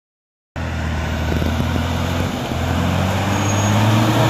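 A motor vehicle's engine running after a half-second silence, its pitch dipping about two seconds in and then climbing as it revs up and grows louder.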